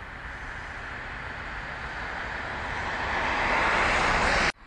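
Road traffic: an approaching vehicle's tyre and engine noise growing steadily louder, then stopping abruptly near the end.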